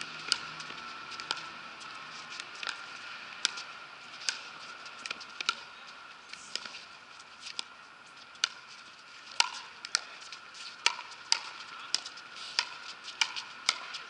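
Pickleball paddles hitting the hollow plastic ball in a fast rally: a string of sharp pops roughly every half second to second, coming quicker in the second half. A faint steady high tone sits underneath.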